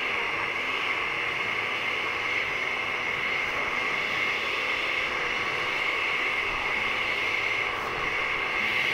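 Countertop blender motor running steadily at one even pitch, blending a thick sauce with a piece of boiled potato added to thicken it.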